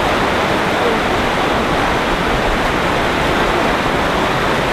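Shallow river rapids rushing, a loud steady wash of water.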